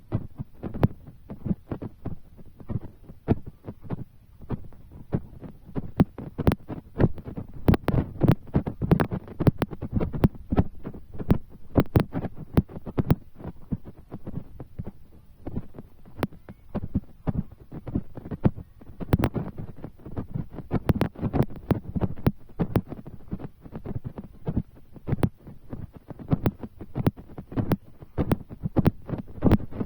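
Raindrops striking close to the microphone as many irregular low thuds, several a second.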